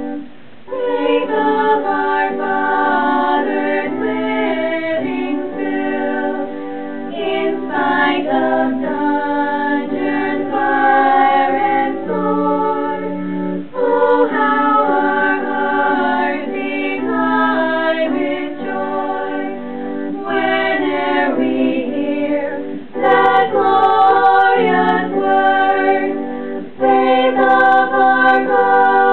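A small group of young women singing a song together, in sung phrases with brief breaths between them.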